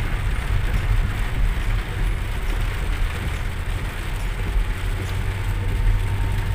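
Steady low rumble of a car driving in heavy rain, heard from inside the cabin, with rain hitting the roof and windows.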